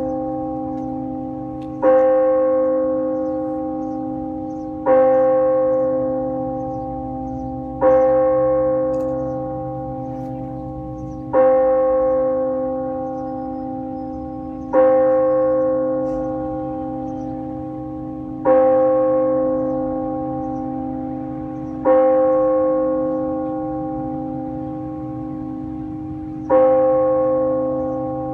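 A single bell tolled slowly, struck eight times at the same pitch about three to four seconds apart, each stroke ringing on and fading into the next over a steady hum: a memorial toll.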